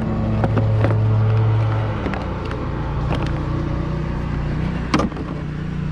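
Hands handling a compression tester kit: a few sharp clicks and rustles from its plastic case, hose fittings and bagged instruction sheet. Under them a steady low mechanical hum runs, and it drops in level and shifts pitch about two seconds in.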